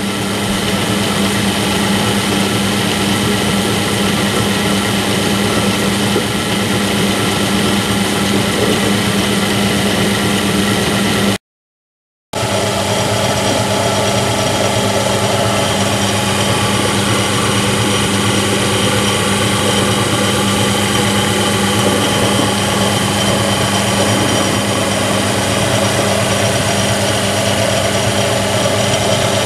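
Belt-driven bench pillar drill running steadily with its freshly oiled spindle bearings, sounding really nice and smooth. The sound cuts out for about a second around eleven seconds in, then carries on unchanged.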